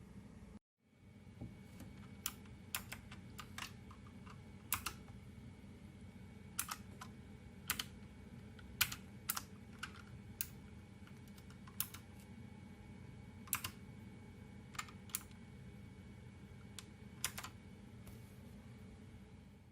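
Keys being typed on an A4Tech Bloody B760 mechanical keyboard with LK optical switches: irregular, separate key clicks, one to three a second, over a steady low hum.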